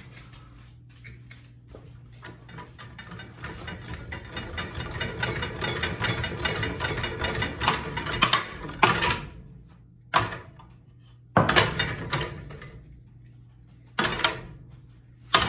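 Ceiling fan running with a steady electric hum and a rapid, even ticking clatter that builds and grows louder over several seconds. It is followed by several loud sharp bangs spaced a second or more apart.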